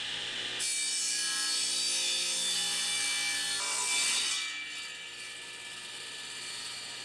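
Electric miter saw running and cutting through a wooden 4x4: a motor whine with sawing noise, louder for the first four seconds or so and then easing off as the blade runs on.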